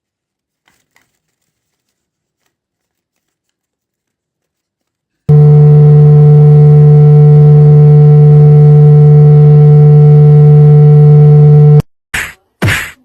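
Near silence for about five seconds, then a very loud, steady electronic tone with a low pitch and a higher one above it, held for about six and a half seconds and cutting off suddenly. Right after it, sharp hits begin, a couple of them about half a second apart.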